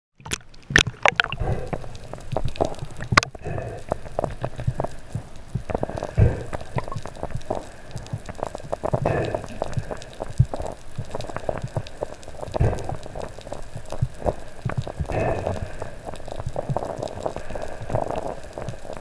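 Muffled underwater sound through a waterproof camera: water gurgling and crackling, with irregular small clicks and knocks and a swell every few seconds. A quick run of sharp clicks comes in the first second.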